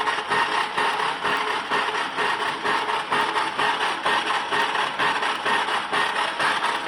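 Metal lathe running, turning a 245 mm pipe: a steady mechanical noise with a faint whine, wavering slightly in loudness.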